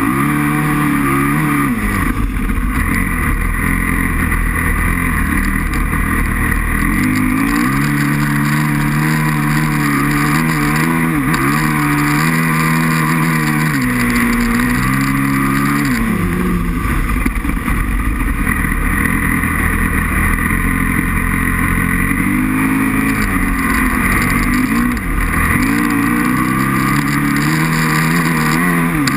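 Aprilia RXV 550's V-twin engine running hard on an ice track, its pitch dropping and climbing again several times as the throttle is closed and reopened.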